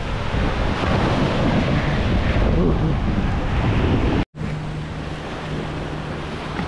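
Wind buffeting the microphone over ocean surf on a beach. About four seconds in the sound cuts out for an instant and comes back quieter, now with a steady low hum under the surf.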